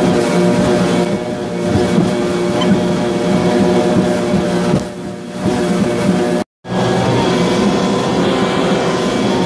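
Twin 90 hp outboard motors running steadily at speed under the rush of wind and water from the wake. The sound breaks off for a moment about six and a half seconds in, then carries on unchanged.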